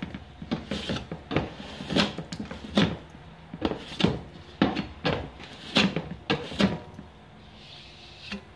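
A metal scraper scraping ridges of dried filler off a patched wall, in quick repeated strokes that stop about seven seconds in.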